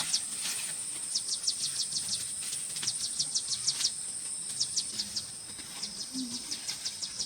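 Insects calling: a steady high-pitched buzz, with a rapid run of short chirps, several a second, over it.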